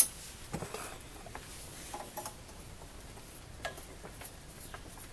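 Small metal screws being started by hand into a small engine's ignition coil mounting: one sharp click right at the start, then faint, scattered ticks and taps of fingers and metal parts.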